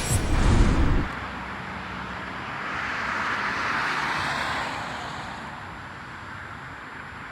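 A loud low rumble for about a second at the start, then a road vehicle passing: its tyre hiss swells and fades over a few seconds.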